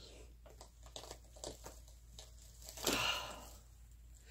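A woman crying takes one sharp, tearful breath about three seconds in. Around it are faint rustles and light clicks of a crocheted blanket being handled.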